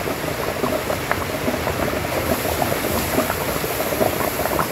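A pot of thin lentil dal bubbling at a boil, a steady stream of small, irregular pops and blips.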